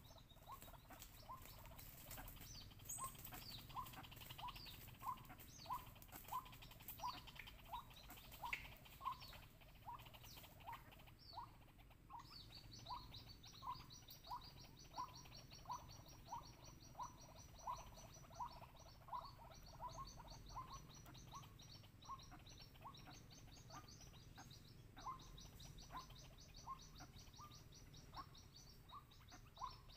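White-breasted waterhen calling: one short note repeated evenly, a little under twice a second, faint. From about twelve seconds in, a fast high-pitched trill runs alongside it.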